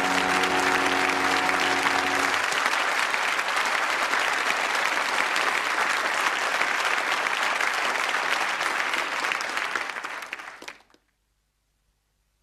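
Audience applauding, with the held final notes of the theme music ending about two seconds in. The applause cuts off suddenly near the end.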